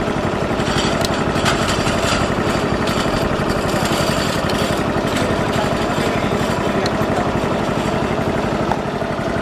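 Honda EX3 motorcycle's 70cc single-cylinder four-stroke engine idling steadily.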